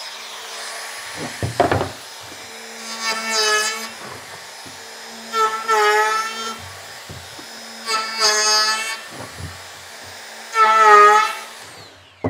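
Router running with a 45-degree chamfer bit, cutting the edge of an oak board. A steady motor hum is broken by four louder cutting passes whose pitch dips and recovers as the bit bites into the wood. The motor is switched off and winds down near the end.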